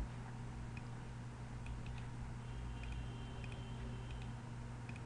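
Quiet room tone: a steady low electrical hum with faint ticks roughly every second.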